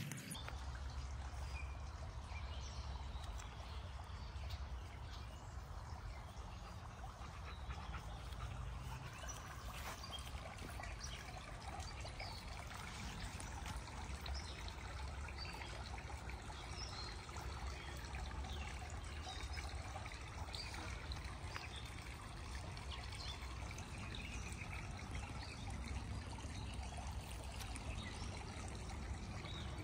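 Steady trickling, splashing water, with a low rumble underneath and small scattered high ticks.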